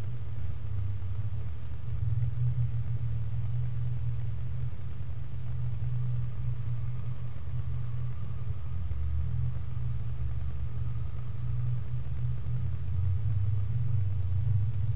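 Off-road 4x4's engine running steadily at low revs: an even, low rumble with no revving.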